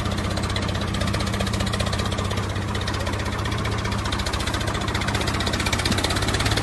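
Diesel tractor engine idling steadily, with a fast, even chugging beat.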